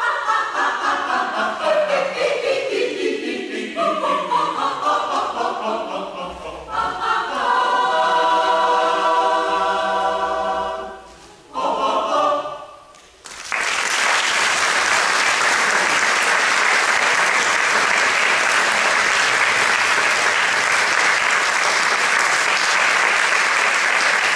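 A choir singing the closing phrases of a song, voices gliding down, then a long held chord and a short final phrase. About halfway through, the audience breaks into steady applause that lasts to the end.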